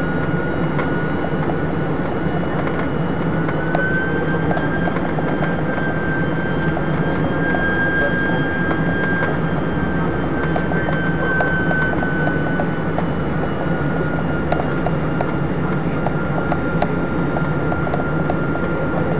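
Airliner cabin noise from the engines and airflow: a steady roar with a high engine whine that rises slightly in pitch about four seconds in and settles back down around twelve seconds.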